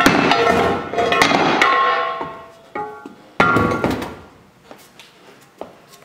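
Metal furnace door clanking against hard surfaces as it is handled and set down. Loud metallic strikes that ring and fade, the heaviest at the start and again about three and a half seconds in, followed by a few light knocks.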